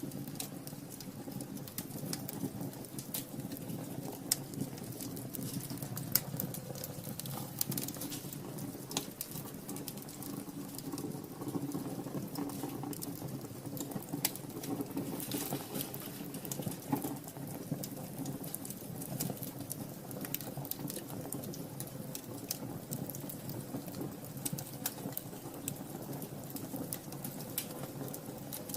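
Wood fire in a fireplace crackling: many small, irregular pops and snaps over a low, steady rumble.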